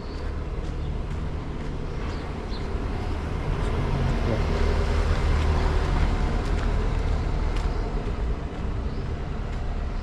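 A car passing along a dusty dirt road. Its engine and tyre noise rise to a peak about halfway through, then fade.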